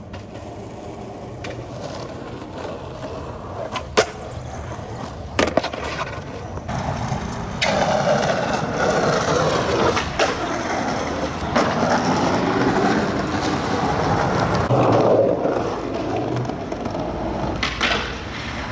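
Skateboard wheels rolling over pavement, with a few sharp clacks of the board a few seconds in. The rolling gets louder about halfway through.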